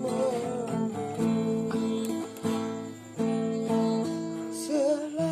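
Acoustic guitar playing the chords of a slow dangdut song between sung lines. A sung note trails off at the start and another slides in near the end.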